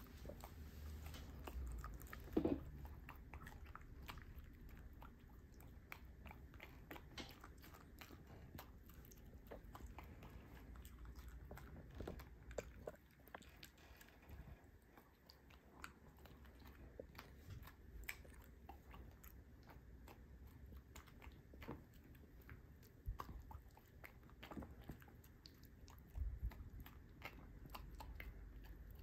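Miniature dachshund eating a summer vegetable salad of cucumber and tomato pieces, with many small crunches and bites as it chews. There is a louder knock about two and a half seconds in.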